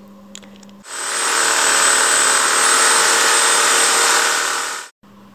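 Handheld power tool running steadily while cutting through a seized lower control arm bolt. It comes up to speed about a second in and cuts off sharply near the end.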